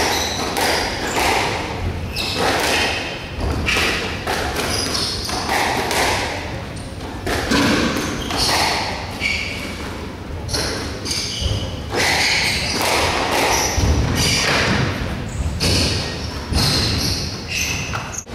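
Squash rally: the ball struck by racquets and thudding off the court walls in an irregular rhythm, with short high squeaks from the players' shoes on the wooden floor.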